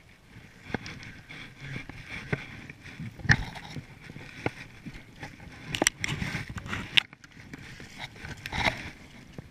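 Wellington boots scuffing and squelching on a wet, muddy bank, with scattered sharp knocks and clicks from handling a landing net.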